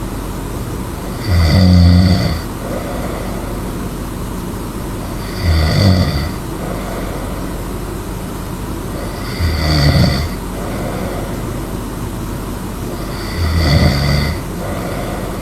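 A sleeping person snoring loudly: four snores about four seconds apart, each lasting about a second, over steady background noise.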